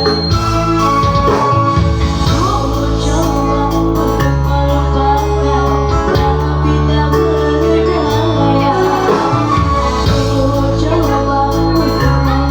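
A song with singing over a band accompaniment, its long held bass notes changing about every two seconds.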